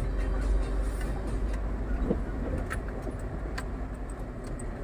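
Scania R440 truck on the move, heard from inside the cab: a steady low diesel engine and road rumble, with a few short light clicks and rattles from the cab as it rides.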